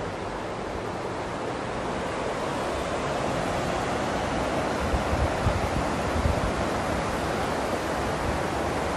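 Steady rushing outdoor noise with wind buffeting the microphone, gusting harder around the middle.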